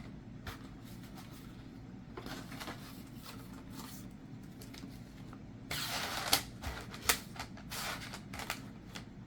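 Plastic cable-cover channels and their packaging being handled: scattered light clicks and rustling, with a louder rustle about six seconds in and two sharp clacks just after it.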